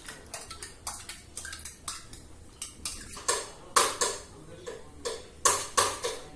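Steel spoon and steel tumbler clinking and scraping against the inside of a stainless steel pot: a quick run of light clicks, then louder ringing clinks from about three seconds in.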